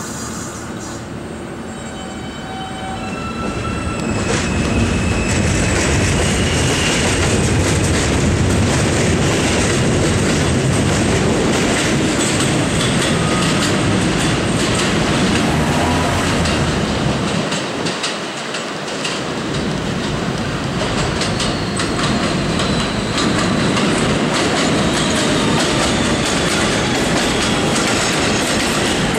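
Kawasaki R160B subway train pulling out of an elevated station: its traction motors whine in rising steps as it starts, then its wheels clatter loudly over the rail joints as the cars go by. The noise dips briefly about 18 seconds in, then a second subway train clatters past on the neighbouring track.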